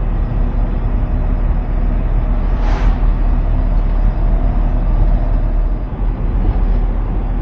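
Mercedes Vario expedition truck driving, heard from inside the cab: a steady low engine and road rumble. A brief rushing sound comes through about three seconds in.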